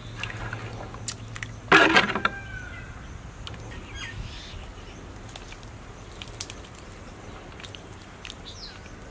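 Outdoor ambience with a steady low hum and a few brief bird chirps, broken by one short, loud, harsh sound about two seconds in.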